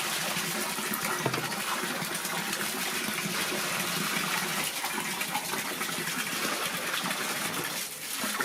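Tap water running steadily into a bath basin, dropping briefly near the end.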